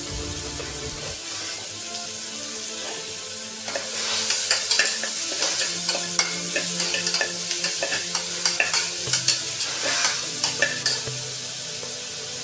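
Chopped onions sizzling in hot oil in a pressure cooker, with a steady hiss. From about four seconds in until near the end, a metal spatula scrapes and clicks against the pot as the onions are stirred.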